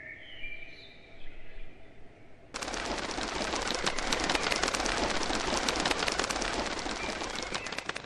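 Small birds chirping faintly, then about two and a half seconds in a sudden loud, dense rattling clatter of many rapid cracks that runs on and fades out near the end.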